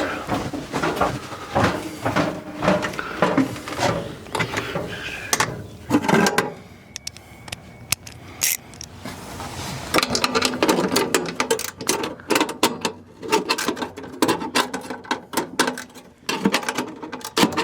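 Hand ratchet clicking in quick runs as the screws holding an RV furnace's blower motor are loosened, with a quieter pause part-way through.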